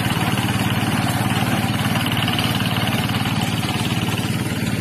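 Engine of a portable rice thresher running steadily at a fast even beat, working under load while threshing harvested rice stalks.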